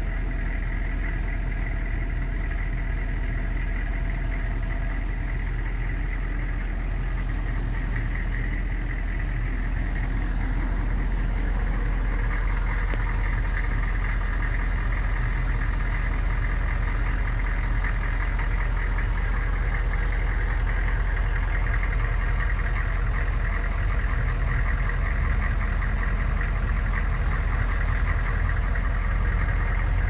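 HMMWV's V8 diesel engine idling steadily, growing slightly louder after about ten seconds.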